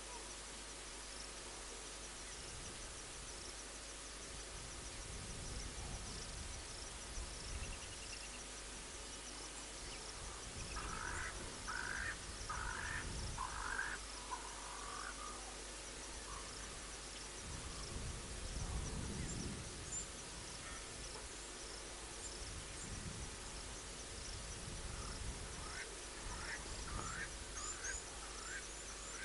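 Outdoor bushveld ambience. A bird gives a short series of repeated calls about midway through and again near the end, over faint high-pitched chirping. There is an occasional low rumble.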